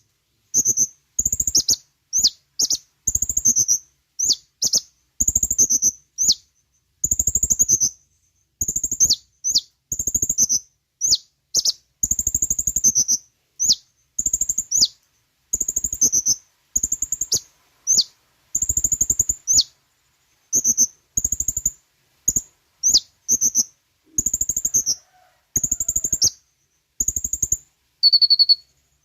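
Kolibri ninja (Van Hasselt's sunbird) singing: rapid strings of high, thin chirps and short downward-sweeping notes, in bursts of about a second with brief pauses between. It is a song recording played as a lure to get caged birds to answer.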